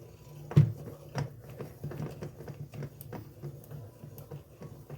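Ratchet wrench with a 13 mm socket clicking as a bolt on a starter motor is turned, with irregular metal taps and one louder knock about half a second in.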